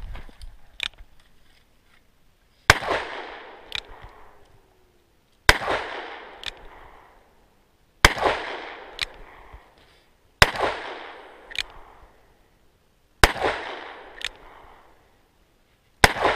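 Stainless Smith & Wesson .44 Magnum revolver firing six shots, one every two and a half seconds or so, with home-loaded plinking rounds. Each shot is followed by a fading tail and a fainter crack about a second later.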